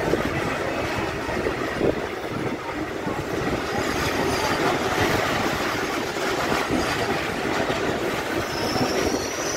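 A MEMU electric multiple-unit train running, heard from inside the coach: a steady rumble of wheels on rail with a couple of sharp knocks in the first two seconds, and a faint high whine coming in near the end.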